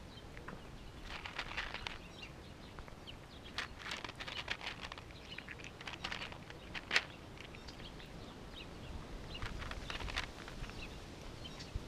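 Two cats eating from plastic trays: irregular bursts of small wet chewing and licking clicks, with one sharper click about seven seconds in.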